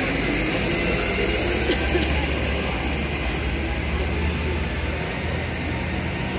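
A vehicle engine running close by: a steady low rumble under general city street noise.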